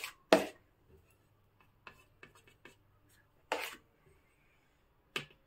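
Metal palette knife scraping cream out of a steel bowl and spreading it on a cake: three short scrapes, the first about a third of a second in and the loudest, one past halfway and one near the end, with faint soft ticks between.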